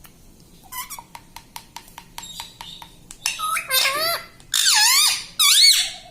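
Pet ring-necked parrot making a quick run of clicks, then three loud calls that swoop up and down in pitch.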